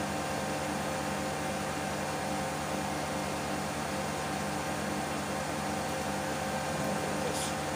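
Steady machine hum with a fan-like hiss: several constant tones over an even noise, unchanging throughout. A faint brief high squeak comes about seven seconds in.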